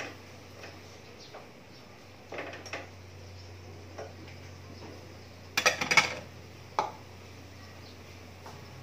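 A cooking utensil stirring vegetables in a red pot, with scattered knocks and clinks against the pot. About five and a half seconds in comes a quick cluster of louder clanks, the loudest sound here, and one more clank a moment later.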